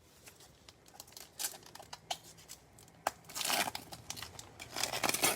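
A Prizm baseball card pack's foil wrapper being torn open and crinkled, with light clicks and rustles of cards being handled; the two main bursts of tearing and crackling come about three seconds in and near the end.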